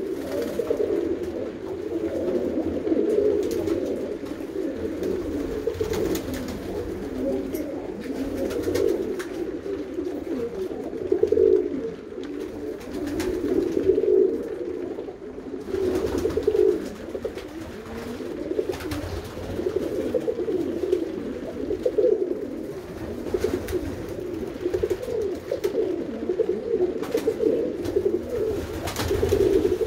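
A loft full of Bowden tippler pigeons cooing, many overlapping low coos without a break, with a few brief sharp sounds among them.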